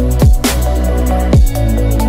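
Electronic background music with a heavy, steady bass, deep drum hits that drop in pitch about once a second, and fast hi-hat ticks.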